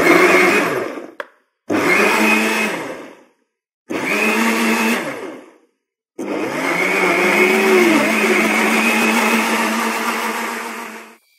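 Vidia BL-001 high-speed blenders chopping tomatoes in water: three short pulses, each spinning up and winding down, then a steady run of about five seconds that stops abruptly.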